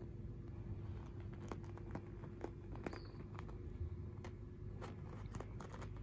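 Cockatiel's feet tapping and scratching on a fabric sofa cover as it walks, a scatter of light, irregular clicks.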